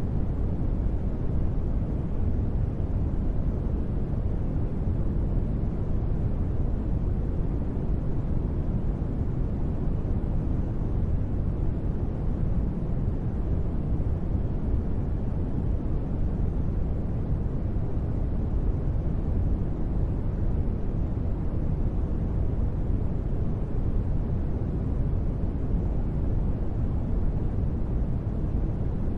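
Steady, unchanging noise ambience with most of its weight low, a deep rumble rather than a bright hiss, with no tones or events in it.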